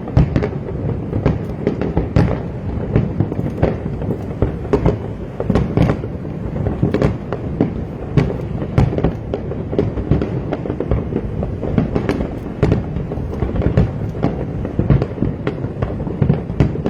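Fireworks display going off continuously: many sharp bangs and crackles, several a second, over a steady low rumble of booming bursts.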